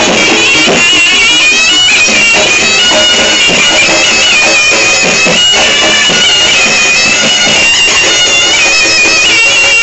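Reog Ponorogo music: a slompret, the double-reed trumpet of the reog ensemble, plays an unbroken melody that steps up and down, over drum strokes.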